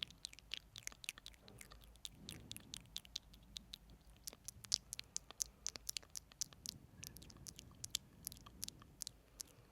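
Close-miked mouth sounds: wet lip and tongue clicks and pops, several a second at an uneven pace, over a faint low hum.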